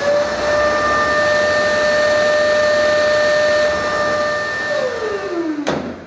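Bosch GAS 35 dust extractor motor running with a loud, steady whine and airflow hiss, then winding down in pitch near the end, followed by one sharp knock. It is running with an aftermarket filter fitted, and with that filter the owner says the manual filter cleaning no longer works.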